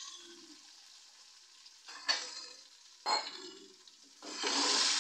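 Tomato, onion and garlic sizzling in hot oil in a steel kadhai. The sizzle dies down at the start to a quiet stretch, two sharp metal clinks come about two and three seconds in, and the loud sizzling returns near the end.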